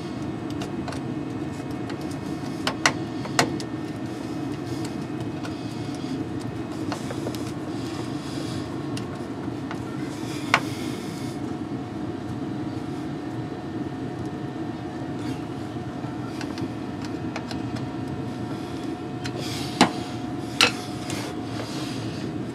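Steady low background rumble with a few sharp metallic clicks and taps, two about three seconds in, one near the middle and two near the end, as a screwdriver works a hose clamp on a fuel filler-neck fitting.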